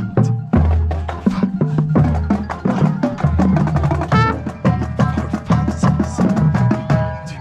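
Marching band percussion playing a busy rhythmic passage of quick, sharp strikes over sustained low bass notes.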